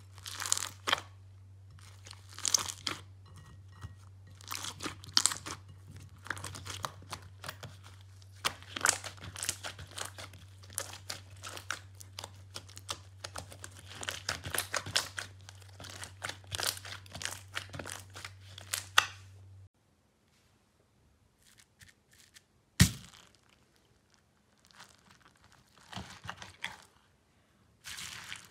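Hands squishing and kneading glossy slime, a dense run of wet crackles and pops over a steady low hum. The hum and crackling cut off about two-thirds of the way through. After that the squishing is fainter and sparser, with one sharp snap, and near the end it turns louder again as a hand presses into clear slime packed with foam beads.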